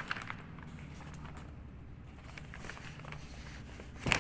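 Quiet room tone with a low steady hum and a few faint clicks, then a short sharper knock near the end.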